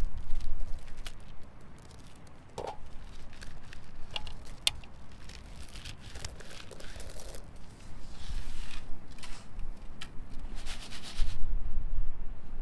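Dried corn kernels being twisted off the cob by hand, crackling and pattering as they drop into a metal basin of shelled kernels, a quick run of small clicks and rustles.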